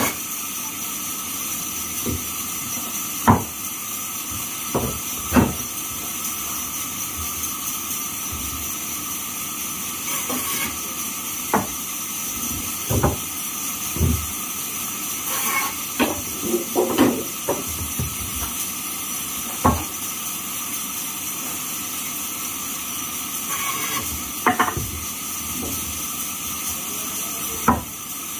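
Large sawmill band saw running with a steady hiss as timber boards are fed through it, with irregular sharp wooden knocks every few seconds as boards and cut pieces are handled and set down.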